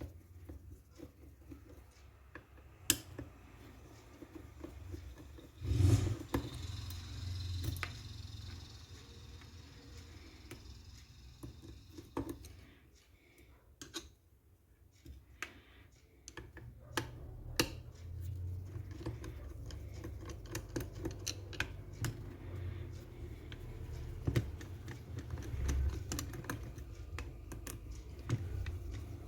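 Scattered light clicks and knocks of tools and small parts being handled while an airsoft M14 is taken apart, with one louder knock about six seconds in.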